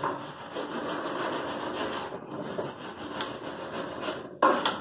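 A folding ruler being unfolded and pressed against a cabinet side panel: rubbing and scraping of the ruler's sections, with a sharp knock near the end.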